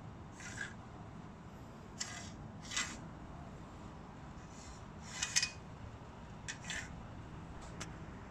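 Metal mounting bracket of an AEG PSU1000 mitre saw leg stand being slid and shifted by hand along the stand's metal rail: a series of short metallic scrapes and clicks, the loudest about five seconds in.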